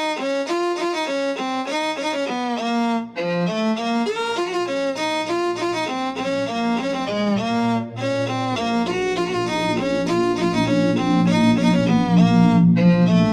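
Background music led by a fast violin melody of short notes; a low bass part joins about two-thirds of the way through.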